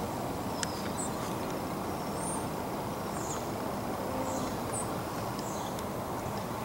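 Steady low outdoor rumble, with short, faint, high-pitched calls from small birds about once a second and a single sharp click under a second in.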